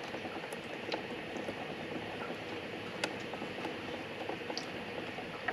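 Water dripping from 2-litre-per-hour drip irrigation emitters into partly filled plastic planter pots: a steady faint water noise with a few small drip ticks.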